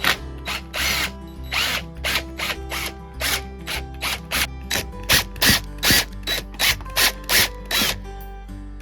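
A hand or power tool working a fastener on a bicycle in quick repeated short strokes, about two a second, stopping near the end, over background music.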